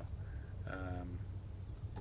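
Steady low rumble of a car's engine and road noise heard from inside the cabin, with a brief voiced 'um' from the driver about three-quarters of a second in.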